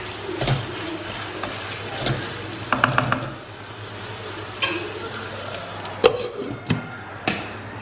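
Wooden spoon stirring and scraping tomatoes and onions in a stainless steel kadai, knocking against the pan, over a light sizzle of frying. About six seconds in, a glass lid is set on the pan with a sharp clink.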